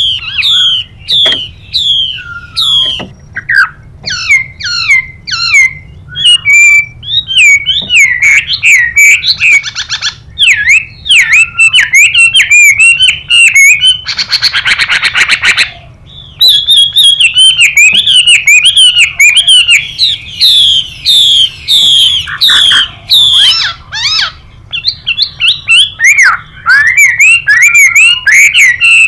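Chinese hwamei song: a fast, unbroken run of varied whistled notes, mixed with harsh buzzy rasps from a female hwamei, the longest lasting about two seconds around the middle.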